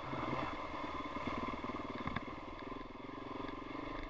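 GasGas 700's big single-cylinder four-stroke engine running under way on a dirt trail, heard from the rider's position, with a single sharp knock about two seconds in.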